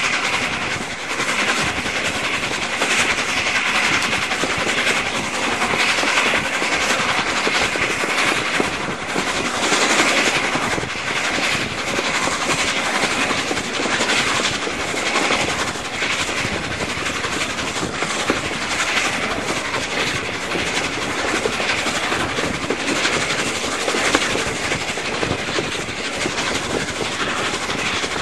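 Carriages of a train hauled by the A1 Pacific steam locomotive Tornado, running at speed and heard from an open window: a steady rush of wind with wheel and rail noise.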